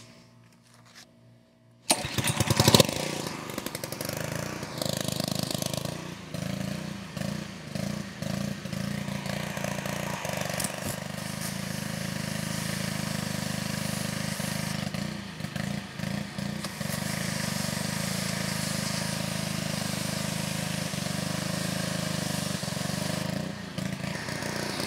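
Honda-engined Excell 2600 pressure washer starting about two seconds in, its small gas engine catching at once and running steadily, with the hiss of high-pressure water spraying from the wand. Full pressure is back after the pump's pressure valve was adjusted.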